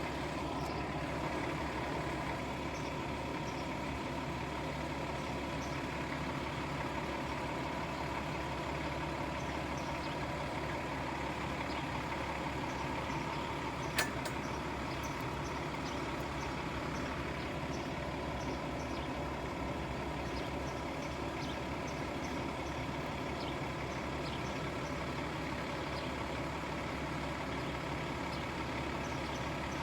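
A steady mechanical drone, with a single sharp click about halfway through.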